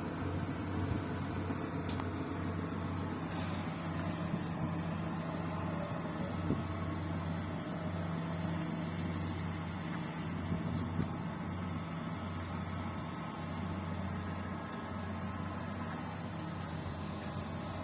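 Bulldozer's diesel engine running steadily with a low, even hum, with a few brief knocks about six and eleven seconds in.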